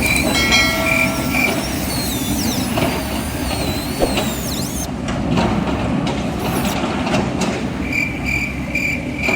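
RC construction models running: a steady mechanical rumble with a high repeating beep about three times a second that stops after a second and a half, then high gliding squeals.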